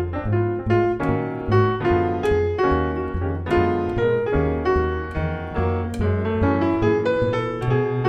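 Jazz piano solo, many quick notes and chords, over a double bass playing steady low notes beneath it.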